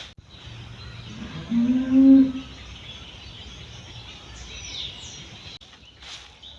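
A cow moos once, a short call about a second and a half in, over steady outdoor background noise; a bird chirps briefly near the end.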